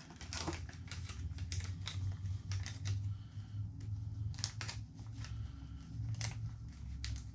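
Plastic soft-bait packaging crinkling and rustling in the hands as irregular short crackles, over a low steady hum.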